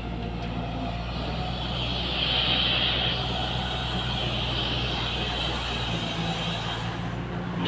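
Diesel engine of an L&T-Komatsu hydraulic excavator running steadily while it digs, with a higher whine that swells about two seconds in and fades near the end as the arm and bucket work.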